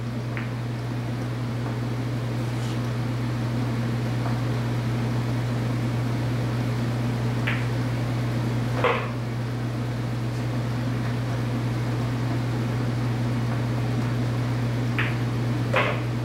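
Pool balls clicking a few times: cue tip on cue ball and balls striking one another, the loudest click about nine seconds in and two more close together near the end. A steady low mechanical hum runs underneath.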